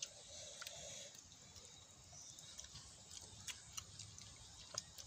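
Faint, irregular mouth clicks and smacks of children chewing food eaten by hand, with a few sharper ticks scattered through.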